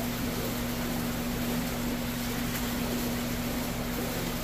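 Steady low electric hum with a hiss, the running noise of fish-room equipment: aquarium pumps and filtration.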